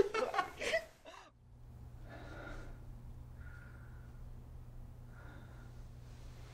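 A young man laughing hard, fading out about a second in. Then a low steady hum with three soft breaths, about two, three and a half and five seconds in.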